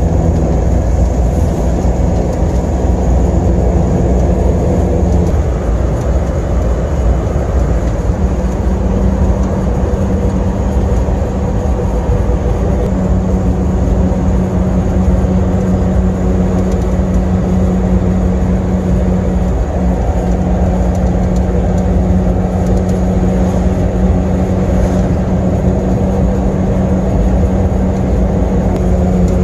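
1997 Asia Towner small truck driving at steady speed, heard from inside the cab: a constant engine drone over low road rumble. The engine note shifts a little about five seconds in.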